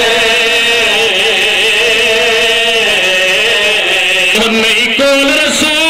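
A man's voice chanting a mourning lament into a microphone, holding one long wavering note for about four seconds before moving through shorter notes. This is the sung wail of a Shia majlis recitation.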